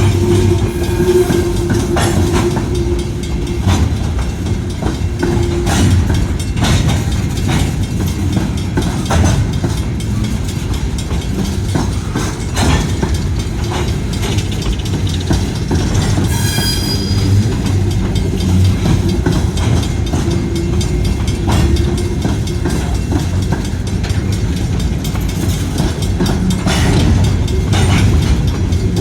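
A train passing close by: a steady loud rumble of rolling cars with repeated clicks and knocks of wheels running over the rails.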